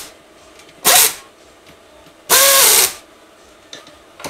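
Handheld power screwdriver running in short bursts to drive in the bolts of a Suzuki DRZ400's starter gear cover: a brief burst about a second in, then a longer one with a motor whine a little past two seconds.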